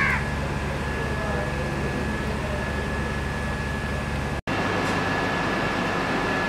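Steady machine hum with a thin, high steady whine over it, broken by a sudden instant of silence about two-thirds of the way through.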